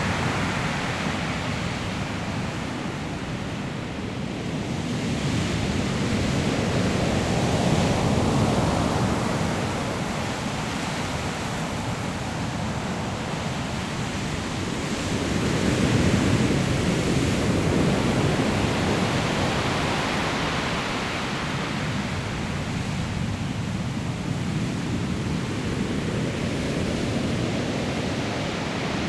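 Sea waves breaking on a pebble shore: a continuous rush of surf that swells louder as each wave comes in, about a quarter of the way in and again just past the middle, then eases back.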